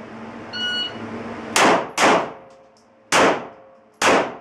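Shot timer beeps once. Then a handgun fires four shots as two double taps: the first pair about a second and a half in, the second pair near the end.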